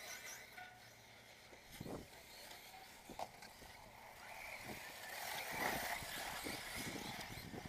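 Electric 1/10-scale RC off-road buggies racing on a dirt track: a high motor whine with tyre noise that grows louder about halfway through, and several short knocks scattered through it.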